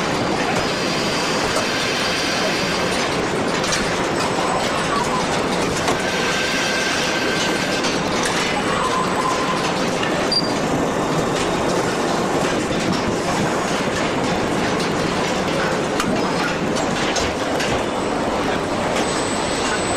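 Car assembly line machinery running: a steady mechanical din with a few brief high squeals and scattered clicks.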